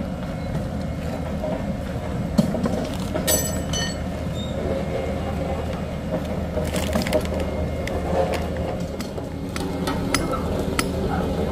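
A heavy engine running steadily, with scattered clinks and clicks of equipment being handled and faint voices.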